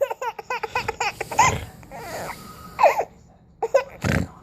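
A nine-month-old baby giggling: a quick run of short high laughs in the first second, then a few separate laughs.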